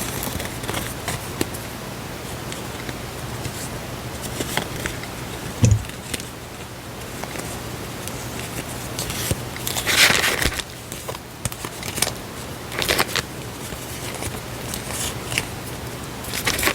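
Paper stationery being handled: rustling, crinkling and light taps, with one dull thump about six seconds in and louder rustles around ten and thirteen seconds.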